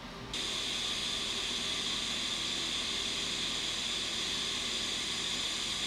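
Pulsed TIG welding arc, with the pulse frequency set at 120, running steadily as a hissing buzz while an edge is welded. It starts about a third of a second in and cuts off suddenly at the end.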